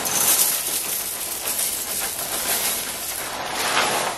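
Crunchy Nut cornflakes poured from the box into a ceramic bowl: a steady, dry rattle and rustle of flakes landing in the bowl.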